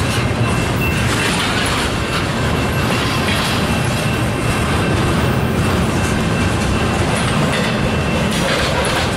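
Freight cars rolling past close by: a steady, loud rumble of steel wheels on the rails with a thin, steady high tone above it.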